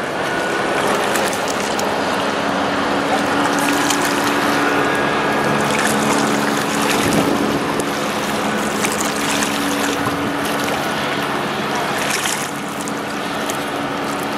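Inland motor tanker ship passing close by: a steady low hum from its engine under a continuous rush of water and wind noise.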